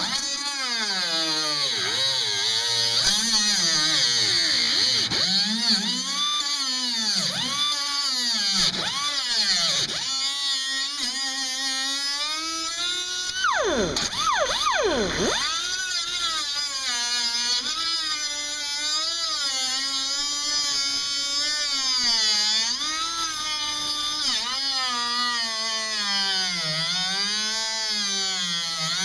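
Angle grinder with a cutoff wheel cutting through rusted sheet steel in a wheel well, its motor whine sliding up and down in pitch as the wheel bites and eases off, over a steady hiss of cutting. About halfway through, the pitch drops sharply and recovers twice.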